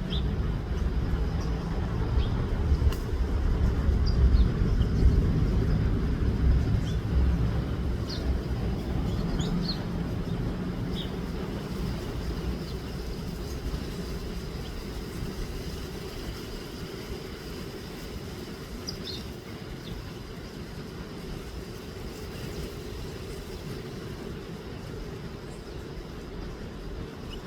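Low rumble of a passing vehicle, loudest about four to six seconds in and then slowly fading away, with scattered short bird chirps over it.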